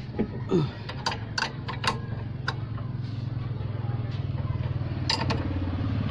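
Metal hand tools clinking on the steering parts as a wrench works the tie rod end. There are several sharp clicks in the first two seconds and another about five seconds in, over a steady engine idle that grows a little louder near the end.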